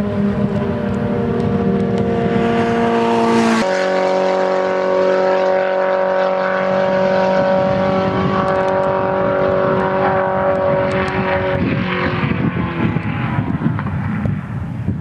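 Midget 1400 race car engines running at high, steady revs. The engine note jumps to a different pitch about three and a half seconds in, then turns rougher and wavering near twelve seconds.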